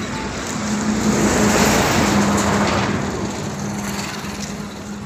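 A motor vehicle engine running, growing louder for the first couple of seconds and then easing off, over a steady low hum.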